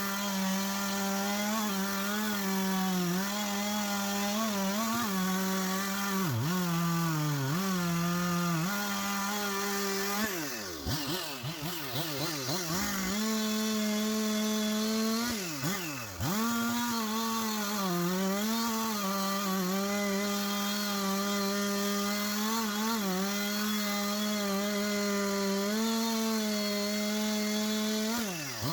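Husqvarna 371 XP two-stroke chainsaw cutting wood under load, its engine note mostly steady with small dips as it bogs in the cut. About ten seconds in, again around sixteen seconds and near the end, the revs swing quickly up and down several times.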